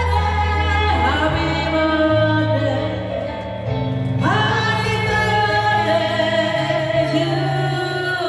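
Live singing: women's voices through a microphone and PA with electronic keyboard accompaniment, a slow melody of long held notes over a steady bass line.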